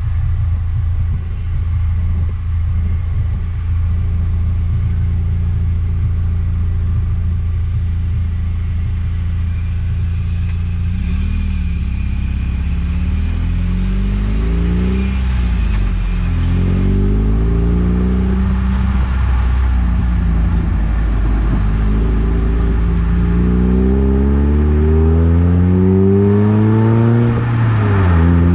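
Eunos Roadster's inline-four engine running steadily while driving, then accelerating from about ten seconds in. Its pitch climbs and drops back at each gear change.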